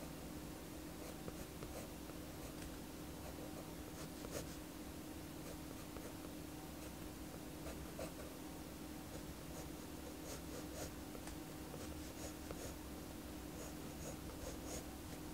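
Pencil scratching on paper in short sketching strokes, over a faint steady hum.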